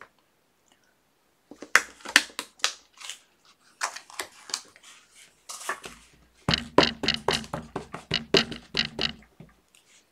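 Craft stamping with an ink pad and stamp on a tabletop: scattered sharp taps and clicks, then a quicker run of taps, each with a dull thump, about four a second, for the last few seconds.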